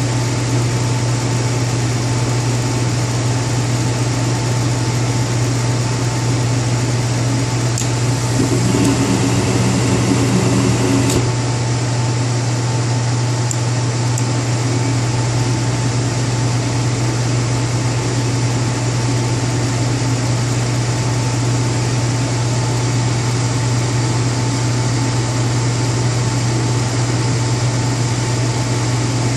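Goodman furnace running with a steady, loud hum and a thin high whine. About eight and a half seconds in, an extra, slightly louder sound joins it for nearly three seconds and stops with a sharp click.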